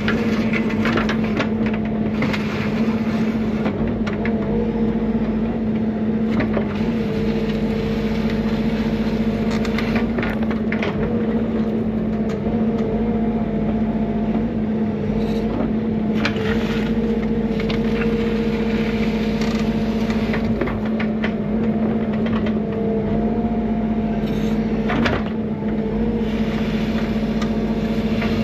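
Bobcat E55 mini excavator's diesel engine running steadily under load, a constant hum with a higher tone that wavers up and down. Scattered scrapes and knocks come from the bucket working gravel.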